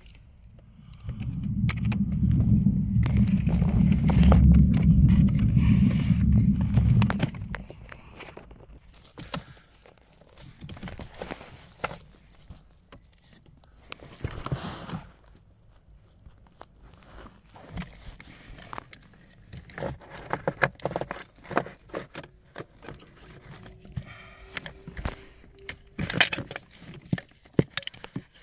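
A loud low rumble for about six seconds, then scattered plastic clicks, knocks and rustling as hands work at a car's pollen filter housing and its plastic cover.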